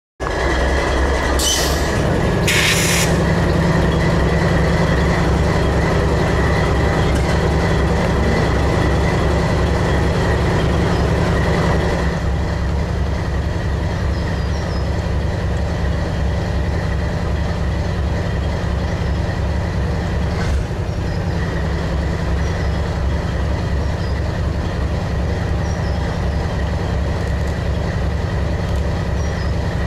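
A Norfolk Southern freight train passing: a steady rumble with an even low pulsing, and two short high-pitched hisses about two seconds in. About twelve seconds in the sound changes abruptly to another train's steady rumble.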